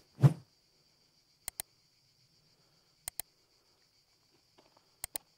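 Faint steady high insect buzz, like cicadas or crickets. Sharp double clicks break through it three times, about every one and a half to two seconds, after a short low sound at the very start.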